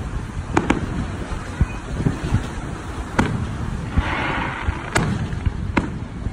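Aerial firework shells bursting, with several sharp bangs a second or two apart and a short hiss about four seconds in, over a steady low rumble.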